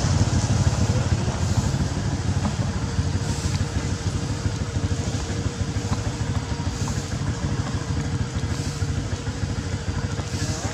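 A small engine running steadily nearby, a low rumble that slowly grows quieter.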